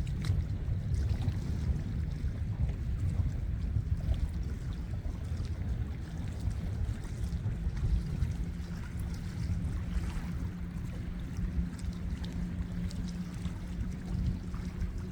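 Seaside ambience: a steady low rumble of wind and water. From about eight seconds in, a faint steady hum joins it.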